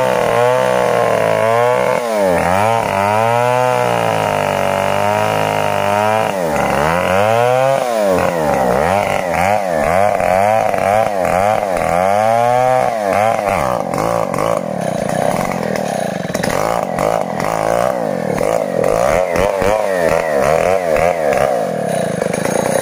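Stihl 070 two-stroke chainsaw running at high throttle as it cuts into the base of a bitti tree trunk. For the first half the engine pitch swings down and back up every second or two as the chain loads in the wood. It then holds a steadier high pitch.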